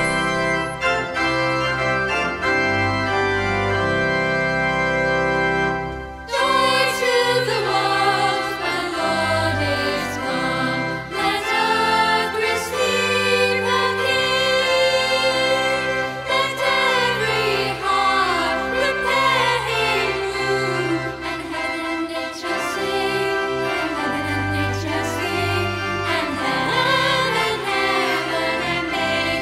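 Held, organ-like accompaniment chords, then about six seconds in a singer comes in over them with a slow melody sung with vibrato, part of a vocal performance of a Christmas song.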